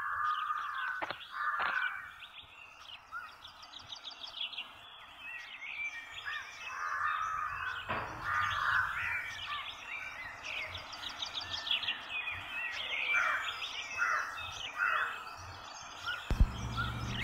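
Birds chirping and calling, with crows cawing, over a steady outdoor background hiss.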